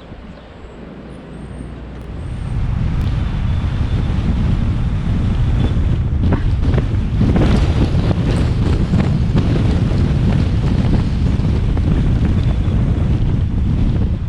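Strong wind gusting and buffeting the microphone as a deep, rumbling rush. It rises sharply about two and a half seconds in and stays loud. A few faint bird chirps come just at the start.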